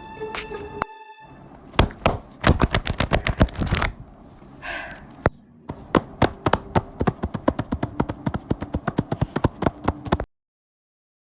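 A rapid series of sharp taps and clicks, quickening to about eight a second for a couple of seconds, then a steadier run of about four or five a second that cuts off suddenly near the end.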